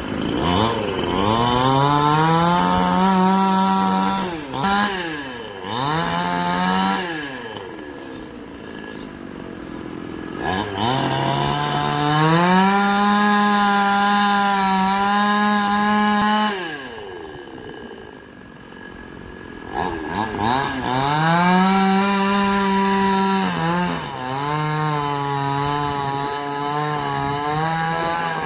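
Two-stroke chainsaw revved to full throttle three times, each held for a few seconds, dropping back to a lower speed in between. It runs at a steady, slightly lower pitch near the end, with a brief rev at the close.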